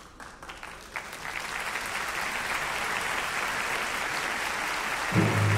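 Audience applauding, the clapping swelling over the first couple of seconds and then holding steady. Near the end, music with a deep bass comes in over it.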